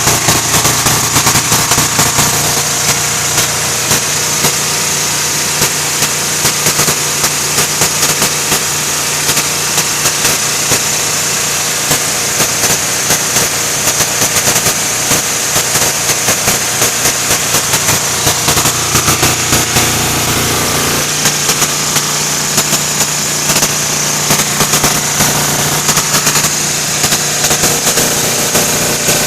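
Kohler KD425-2 two-cylinder diesel engine running, its exhaust a rapid, even train of sharp pulses. The exhaust and muffler are broken.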